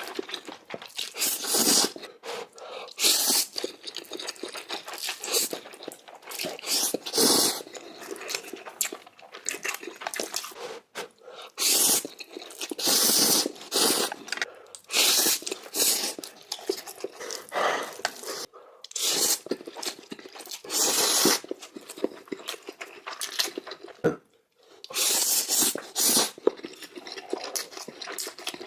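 Close-miked eating of noodles: chewing and mouth sounds in a string of irregular, loud, noisy bursts, each about half a second to a second long, with short pauses between.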